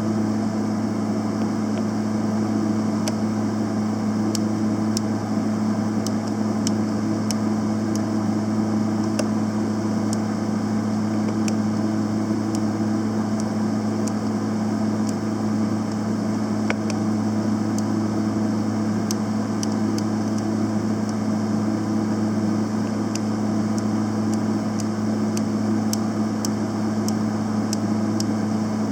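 Panasonic YD-350GB2 semi-automatic welder running: a steady low electrical hum with a noisy haze and scattered faint crackling clicks.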